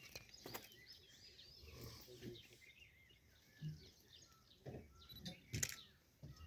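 Faint chorus of small birds chirping and calling, with a few low, short thumps and a couple of sharp clicks near the end.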